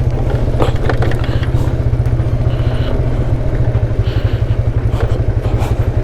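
Motorcycle engine running steadily at low speed on a trail ride, with a fast, even beat of exhaust pulses.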